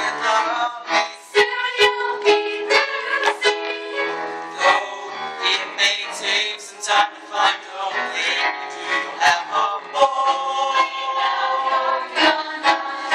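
Music: the instrumental accompaniment of a stage-musical song, with held notes over a steady beat.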